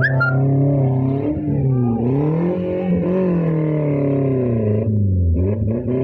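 Off-road 4x4 vehicle's engine running under load, its pitch dipping and climbing several times as it is revved and eased off, with a brief high squeak at the very start.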